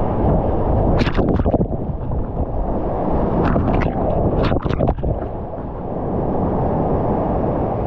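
Steady roar of big whitewater rapids heard from a kayak running through them, with sharp splashes of water breaking over the boat and camera about a second in and again several times between three and a half and five seconds.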